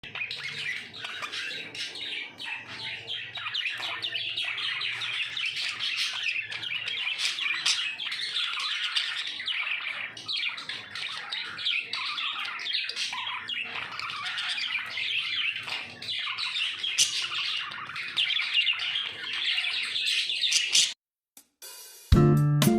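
Budgies chattering continuously, a dense run of short calls. It cuts off about two seconds before the end, and strummed guitar music starts.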